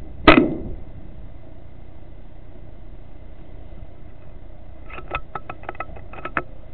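A single shot from a .22 FX Wildcat FAC air rifle: a sharp crack about a third of a second in that dies away quickly. Near the end comes a quick run of about ten light clicks.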